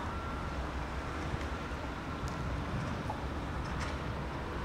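Norfolk Southern diesel locomotives hauling a double-stack intermodal train toward the listener, a steady low engine rumble with a faint, intermittent high tone in the first couple of seconds.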